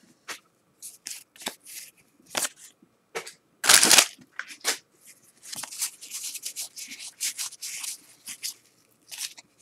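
1989 Topps football cards being slid one by one off a stack by hand: a run of short, papery swipes, quicker in the second half, with one louder, longer rustle about four seconds in.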